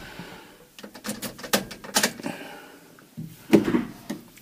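A run of short clicks and knocks from a key in a pickup truck's ignition lock and its steering wheel being turned by hand, with a louder clunk about three and a half seconds in.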